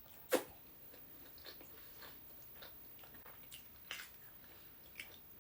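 Close-miked eating: a sharp bite about a third of a second in, then scattered chewing clicks and wet mouth noises at irregular intervals.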